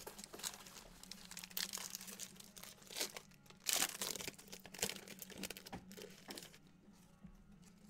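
Foil trading-card pack wrapper crinkling and tearing as it is pulled open by hand, in irregular crackles that die down near the end.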